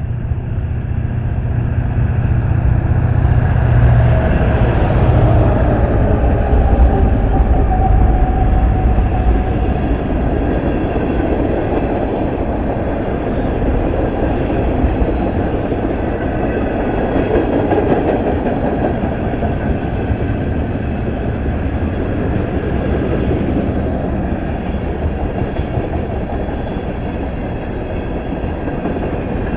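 Freight train passing close by: three diesel locomotives rumble past in the first several seconds, then a long string of tank cars rolls by with steady wheel-on-rail noise.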